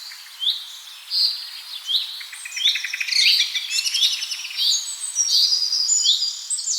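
Several small birds chirping and singing at once: a short, repeated high note comes about once a second, overlapped by quick rattling trills that crowd together in the middle.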